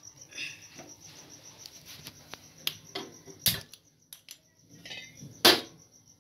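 A few sharp metallic knocks and clinks as a steel cooking pot is handled over a lit gas stove, the loudest about five and a half seconds in. A cricket chirps steadily underneath.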